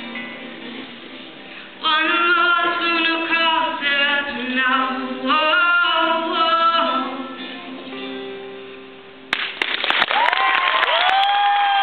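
Guitar chords and several voices singing in harmony through the song's final phrase, then the music fades. About nine seconds in, an audience breaks into applause and cheering, with high whooping calls.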